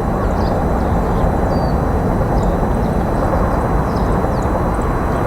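Steady low rushing outdoor noise, with faint, short high-pitched bird chirps scattered through it.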